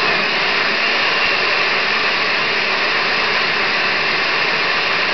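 Countertop blender running steadily, puréeing a mango-habanero sauce mix that is still a little choppy, to blend it smooth.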